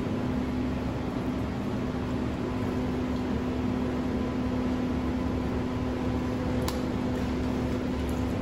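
Steady machine hum of commercial kitchen equipment, holding one low tone throughout, with a single light click about two-thirds of the way through.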